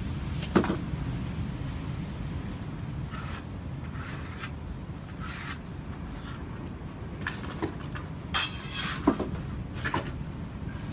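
Scraping and rubbing as the wet tile saw's cutting head is pushed across a tile, with a few sharp knocks and scrapes along the way, over a low steady hum.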